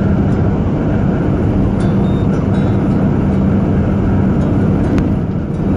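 Truck engine running steadily at highway cruising speed with tyre and road noise, heard from inside the cab as a constant low hum.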